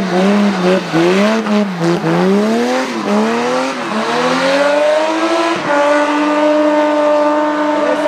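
BMW 3 Series rally car engine driven hard through tight bends, the revs rising and falling about once a second as the throttle is worked. About three-quarters of the way through, the engine settles into a steady, high-revving note.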